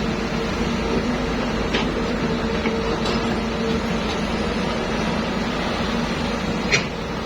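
Excavator's diesel engine running steadily, a constant mechanical hum, with a few short sharp clicks over it, the loudest near the end.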